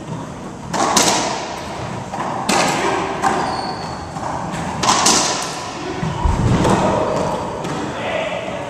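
Racquetball rally: the hollow rubber ball cracking off racquets and the court walls about six times, each hit ringing in the enclosed court, with one deeper thud a little past the middle.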